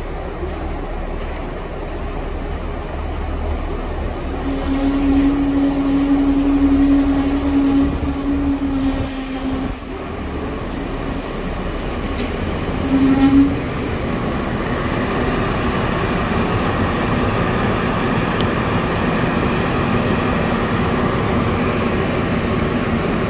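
ÖBB class 5047 diesel railcar running into the station and slowing past alongside the platform, its engine and wheels rumbling steadily. A strong steady tone sounds for about five seconds, starting about four seconds in, and again briefly near the middle, and a high hiss runs for several seconds from about halfway.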